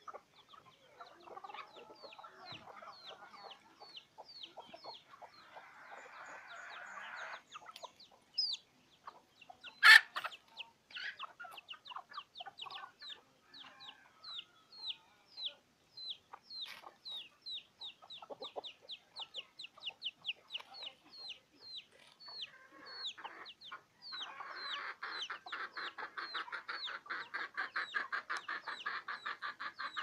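Free-range native chickens clucking while they forage, over a steady run of short, high, falling chirps about two a second. A single sharp click comes about ten seconds in, and a fast pulsing call joins near the end.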